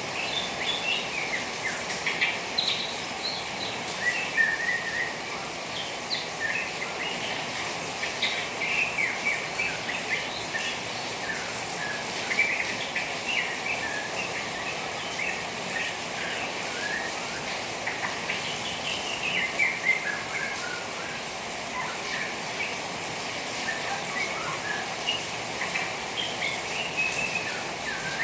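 Juvenile white-rumped shama twittering in quick short chirps throughout, over a steady hiss of falling water.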